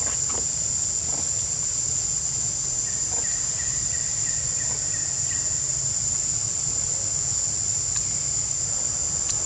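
Steady, high-pitched drone of insects, over a low steady rumble; a faint pulsing chirp sounds briefly in the middle.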